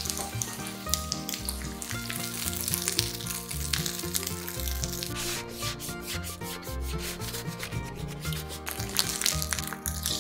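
Chicken pieces sizzling and crackling in a nonstick frying pan, with a paper towel rubbing and scraping across the pan as the excess fat is wiped off.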